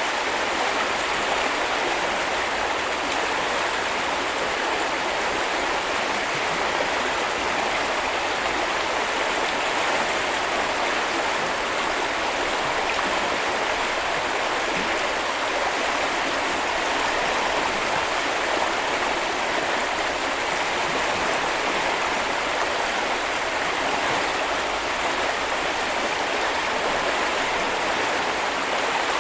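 A river flowing: the steady, even rush of water over stones, with no breaks or single splashes.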